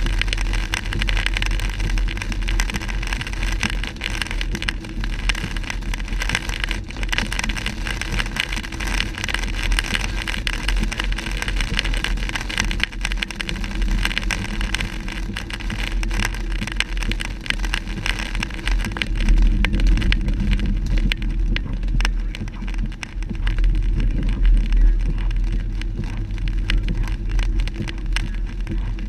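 Car driving on a rain-soaked road, heard from inside the cabin: a steady hiss of tyres on wet pavement over a low road rumble.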